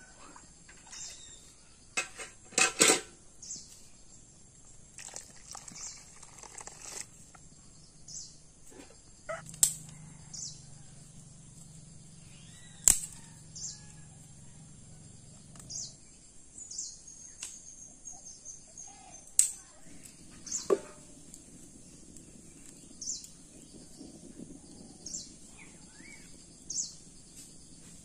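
Sharp knocks and clicks at irregular intervals as food is cut on a boti blade over a wooden board. Short high chirps recur every second or two behind them.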